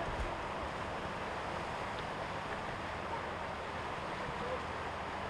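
Steady rush of a fast-flowing, rain-swollen creek through rapids, with low wind rumble on the microphone.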